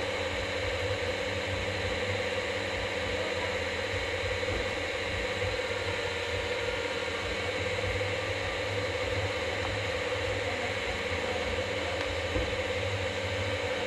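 Steady background hum and hiss, unchanging throughout, with a faint fluttering low rumble.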